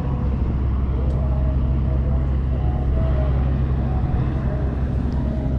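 A steady low engine drone, even and unbroken.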